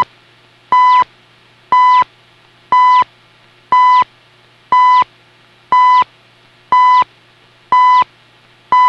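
CHU Canada shortwave time signal on 3.33 MHz, received through a Raddy RF320 portable shortwave radio: a short 1 kHz beep marking each second, nine times in a row, with faint radio hiss between the beeps.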